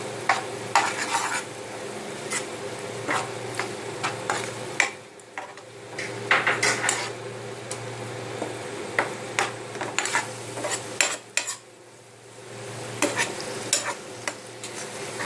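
A spoon stirring and scraping masala as it sizzles in a pan, with frequent sharp clinks of the spoon against the pan. It pauses briefly twice, over a steady low hum.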